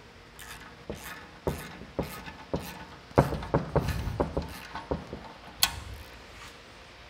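A spanner working a 24 mm cone lock nut up a caliper-bracket bolt, with a hex key holding the bolt head: a run of light metal clicks and knocks about two a second, with one sharper click near the end.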